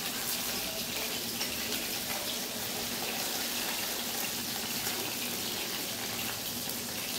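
Hot oil sizzling steadily in a pan on a gas stove as fried fish pieces are lifted out with a spatula.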